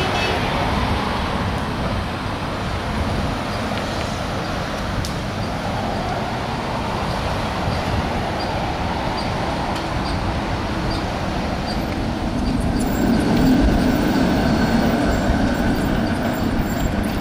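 Street noise of PCC streetcars running past along with car traffic, a steady mix of rolling and traffic sound. It grows louder in the last few seconds as a streetcar passes close, and a steady whine joins in.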